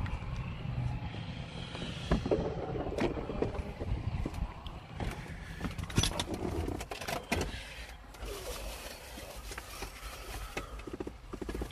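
Wind buffeting the phone microphone outdoors, then a series of sharp knocks and clicks as someone gets into an SUV and handles its door. The sound drops to the quieter cabin after about eight seconds.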